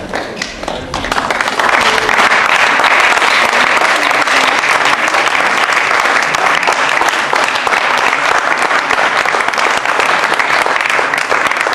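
Audience applauding: dense clapping that builds up over the first second or so and then holds steady.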